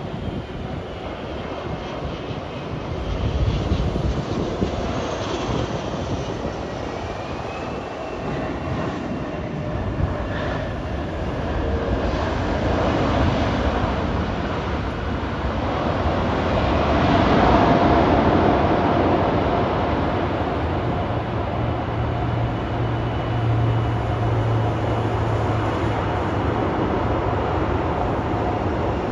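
Airbus A380 jetliner landing and rolling out: a continuous jet engine roar and rush that swells a few seconds in, peaks a little past the middle, then stays loud.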